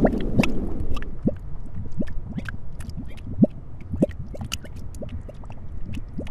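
Bubbling lava sound effect after a volcano eruption: irregular wet plops and pops, a few a second, many rising quickly in pitch, as the low rumble of the explosion dies away in the first moments.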